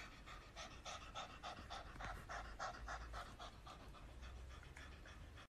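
Cat panting with its mouth open: faint, quick breaths in and out, about three a second.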